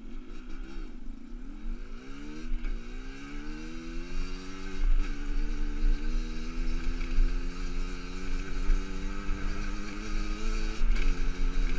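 Rieju MRT 50cc two-stroke enduro engine pulling away, its pitch climbing then dropping once at a gear change about two and a half seconds in, then running at a fairly steady cruise; the engine is still being run in. A low wind rumble sits under it.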